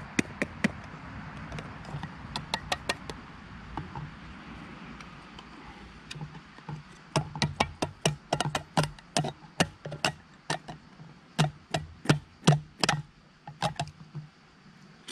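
Tin of tuna being opened by hand: a series of sharp metallic clicks. They come in two short runs near the start, then steadily at about three a second from about seven seconds in.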